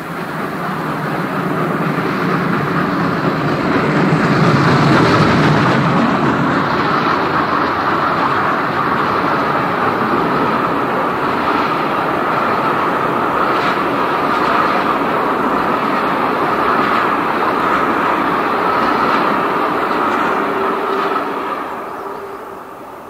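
Steam-hauled train passing close by: the DB Class 01.10 three-cylinder Pacific steam locomotive is loudest about five seconds in, then a long rake of coaches runs past with a steady rumble and the clack of wheels over rail joints. The sound fades near the end.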